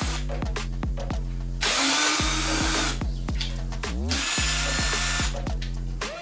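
Cordless drill-driver running, backing screws out of a plasma cutter's sheet-metal front panel: a steady motor hum that dips in pitch again and again, with two louder, harsher stretches about a second and a half in and again near four seconds. It stops suddenly at the end.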